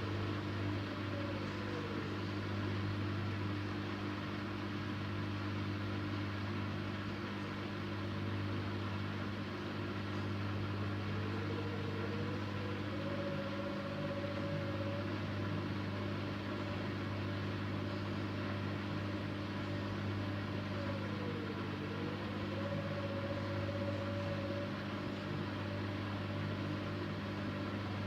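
Siemens Siwamat iQ 716 washing machine running: a steady motor hum with a higher whine that dips and rises in pitch twice, about a third of the way in and again past the middle.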